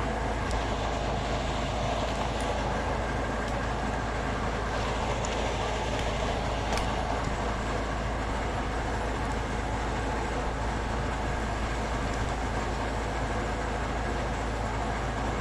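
An engine running steadily at an even pitch, with a few faint clicks over it.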